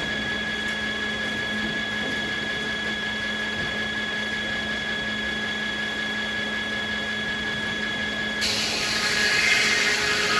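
Sawmill running with a steady high whine from a spinning circular saw; about eight seconds in, a louder rushing noise begins as the blade starts cutting into American beech.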